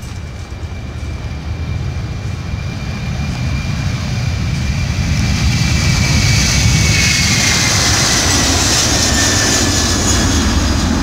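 Widebody jet airliner's engines at takeoff thrust. The sound grows louder over the first six seconds as the aircraft rolls past and lifts off, then holds steady. A thin whine slides slowly down in pitch.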